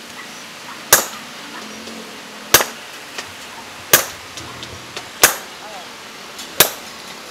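Sledgehammer blows on a handled chisel held against a steel leaf spring on the anvil, cutting the spring: five sharp strikes about one and a half seconds apart, each with a brief ring.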